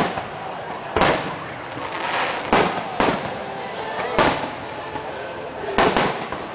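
Aerial firework shells bursting overhead: about half a dozen sharp booms at uneven intervals, two in quick succession near the end.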